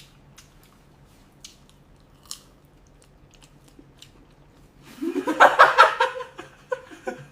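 Someone biting and chewing crunchy food: a few faint clicks at first, then loud crunching and chewing from about five seconds in.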